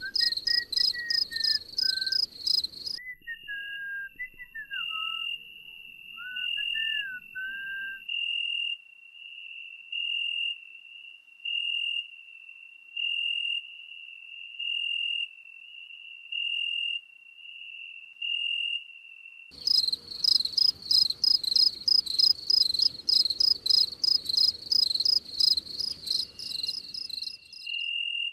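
Crickets chirping. Rapid, high pulsing chirps give way abruptly about three seconds in to a slower, single-pitched chirp repeating a little faster than once a second, with a few whistled gliding notes in the first several seconds. The rapid high chirping returns abruptly past the two-thirds mark.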